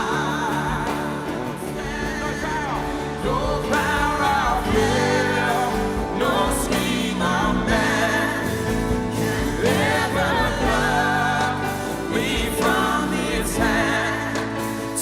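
Live worship song: a band and singers with several voices together, sung melody over steady keyboard and bass.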